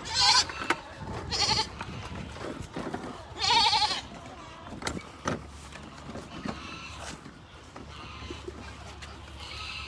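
Goats bleating: three loud, wavering bleats in the first four seconds, then a few fainter calls.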